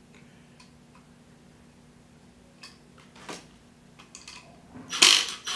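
Cordless impact driver driving a screw into a bamboo drawer panel: a few faint clicks as the screw is set, then near the end a loud burst of the driver's hammering as the screw seats.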